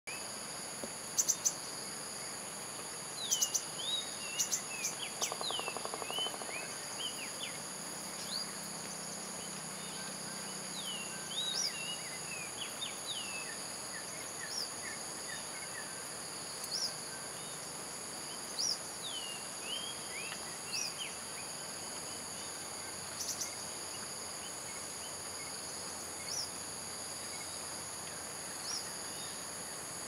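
Forest insects keeping up a steady, high-pitched drone on several pitches. Short bird calls, mostly quick curving, falling notes, come in scattered runs over it.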